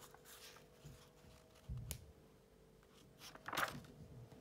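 Paperback book being handled and its pages turned: soft paper rustles, a dull thump with a click a little under two seconds in, then a louder papery swish of pages turning near the end.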